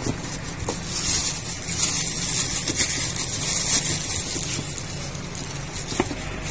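Plastic wrapping crinkling and rustling as it is handled around a new crankshaft in its cardboard box.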